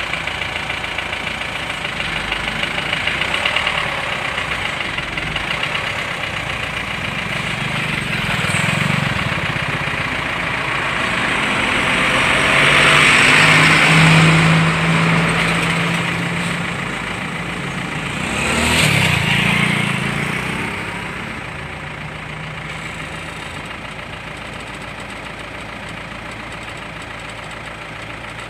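Road traffic: steady engine and tyre noise, with heavy vehicles passing close. The loudest pass-by swells up and fades about halfway through, with a low engine note, and a shorter one follows about five seconds later.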